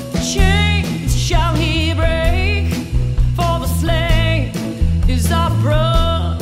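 Background music: a song with a singer holding wavering, vibrato-laden phrases over a band with a steady bass line.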